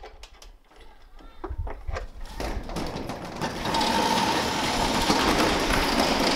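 Roll-up steel garage door rolling open: a few clicks at first, then from about two seconds in a steady rattling mechanical run with a faint steady hum. Wind rumbles on the microphone underneath.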